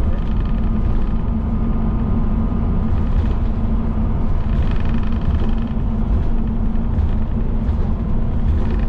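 Steady low engine and road rumble inside the cabin of a moving bus.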